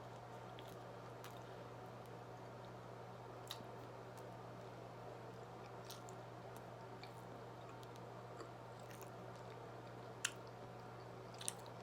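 Faint chewing of pizza close to the microphone, with a few soft mouth clicks, over a steady low hum.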